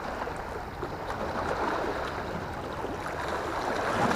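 Sea water washing and splashing against the rocks just below, with wind on the microphone; the wash grows louder near the end.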